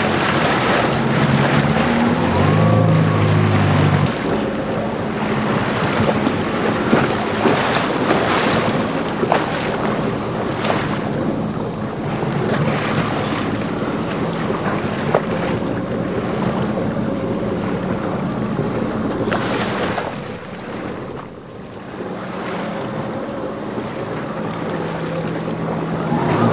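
Yamaha WaveRunner personal watercraft running at low cruising speed, a steady low engine note under the splash and rush of water off the hull, with wind buffeting the microphone.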